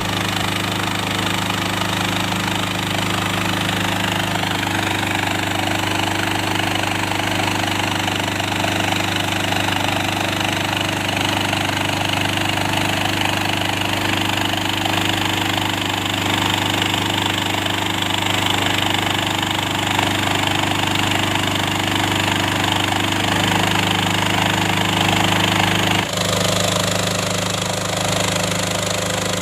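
Small engine of a homemade gold-mining machine running steadily at a constant speed. The sound changes abruptly near the end, as at a cut.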